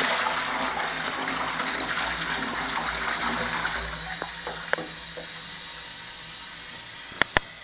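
Toilet flushing: a rush of water that slowly tapers off over several seconds, followed by a few sharp clicks near the end.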